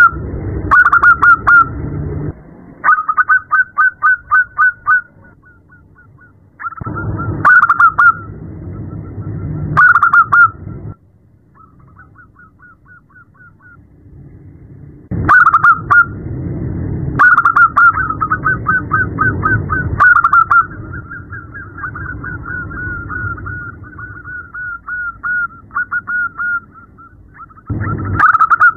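Zebra dove (perkutut) cooing: repeated bouts of rapid, staccato trilled notes with short pauses between them, fainter for a few seconds about the middle. It is presented as a female calling to a male, used to prompt caged males to sing.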